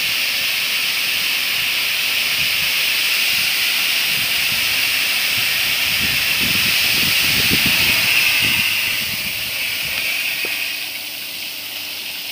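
High-velocity water spray system on a power transformer, discharging through its spray nozzles after the deluge valve is opened: a steady, loud hiss of water spray. The hiss eases off over the last few seconds as the spray dies down.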